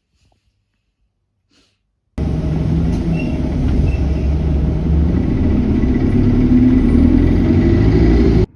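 A road vehicle's engine running loudly, with its pitch creeping up a little. It starts suddenly about two seconds in and cuts off abruptly near the end.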